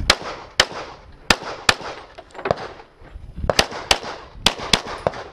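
Semi-automatic pistol firing a rapid string of about ten shots, several in quick pairs, with a brief pause about three seconds in.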